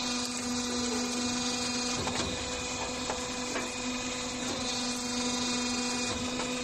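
Motor stator recycling machine running with a steady hum, with several short metal knocks as a copper-wound stator is clamped in its jaws.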